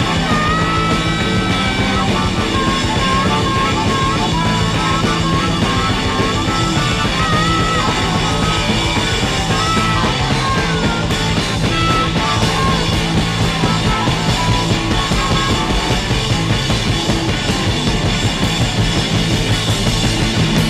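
Rock background music with a lead melody line over a dense, steady band.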